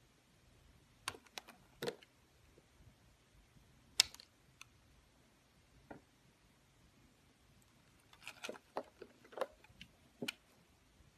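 Utility knife blade cutting and shaving curls off a bar of soap, making short, sharp crunches with pauses between them. The loudest comes about four seconds in, and there is a quick run of crunches near the end.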